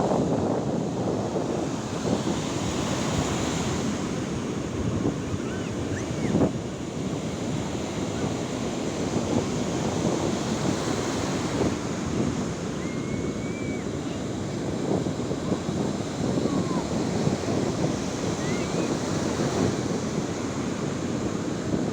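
Sea waves breaking and washing on a shore in a continuous, gently surging rush, with wind buffeting the microphone.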